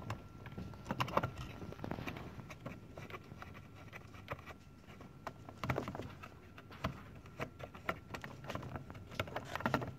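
Scattered light clicks, taps and rustles of hands handling wires and small parts inside a sheet-metal instrument housing.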